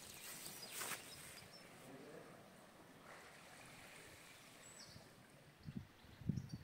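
Faint outdoor ambience: a low steady hiss, with a few soft thumps near the end.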